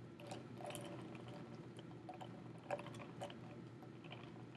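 Faint, scattered clicks and knocks of ice chunks in water being stirred with a temperature probe in a foam cup, over a steady low room hum.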